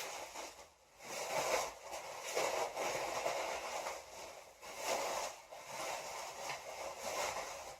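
Packing material crinkling and rustling in irregular bouts as a planter is unwrapped from its packaging.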